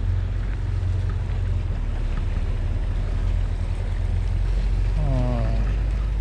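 Low steady engine drone of a passing ship, over an even hiss of wind and sea.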